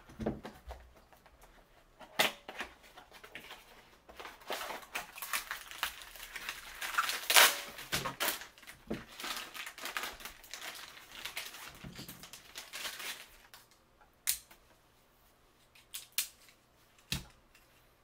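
Beyblade X booster packaging being opened by hand: card and plastic crinkling and tearing with many small clicks. Then a few separate sharp plastic clicks near the end.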